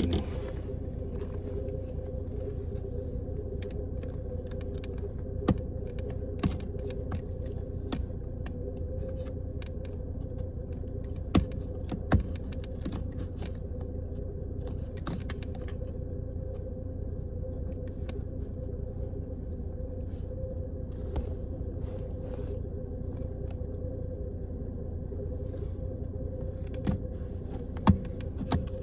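Light clicks and scrapes of a blade and plastic parts being worked inside a car's gear-shifter mechanism, with a handful of sharp clicks spread through, over a steady low mechanical hum.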